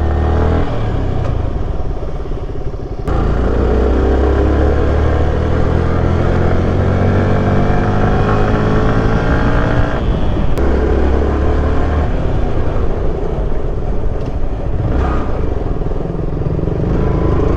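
Single-cylinder sport motorcycle engine running under way, its note climbing steadily for several seconds as the bike accelerates. The sound changes abruptly about three seconds in and again about ten seconds in.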